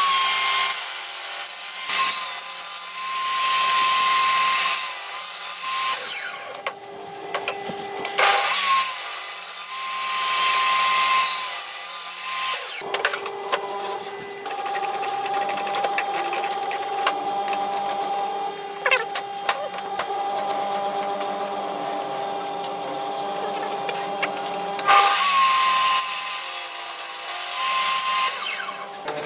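A power tool running steadily and cutting into wood three times: a long cut at the start, another a few seconds later, and a third near the end, each much louder than the machine running between cuts.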